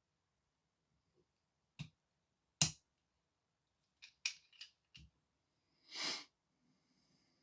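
A few sharp clicks and taps from small hard parts being handled and fitted, the loudest about two and a half seconds in and a quick cluster of three about four seconds in. Near the end comes a short scraping rasp.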